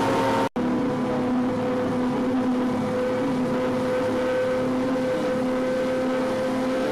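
Excursion boat's engine running steadily at cruising speed, a constant hum over the rush of water in its wake. The sound drops out for an instant about half a second in.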